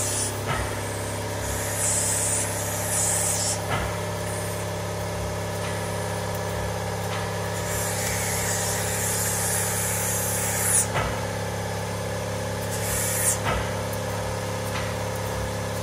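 Semi-truck diesel engine idling steadily, with three hisses of compressed air escaping from a three-way Eaton air shift knob as its switches are flipped, the first two a few seconds long and the last brief, with small clicks of the switches. The knob is leaking air in low range, which the owner suspects is a missing O-ring or a worn-out knob.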